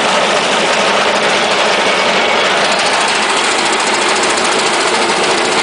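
Wood chipper running at a steady speed: a loud, even engine-and-machine noise with no breaks.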